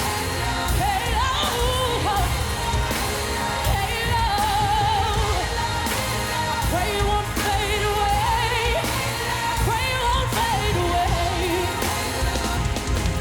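A woman's high, wordless sung runs with wide vibrato, gliding between notes over a full pop band playing steadily.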